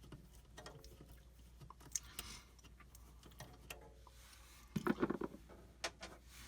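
Light clicks and scrapes of hand work with a screwdriver, taking out a screw from the back panel of a mini fridge, with a louder rattle about five seconds in.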